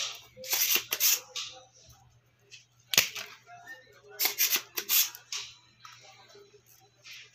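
Spring-loaded desoldering pump snapping several times as it sucks solder from a relay's pins on a voltage stabiliser circuit board: a few sharp snaps about a second in, one sharp snap at three seconds, and a few more near five seconds.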